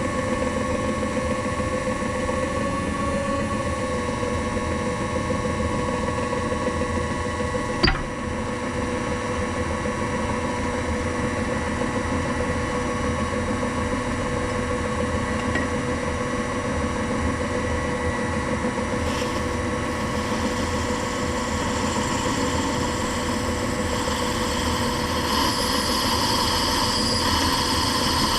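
A workshop machine tool's motor running steadily with a constant hum and whine, a single sharp click about 8 seconds in, and a brighter hiss building over it in the last several seconds.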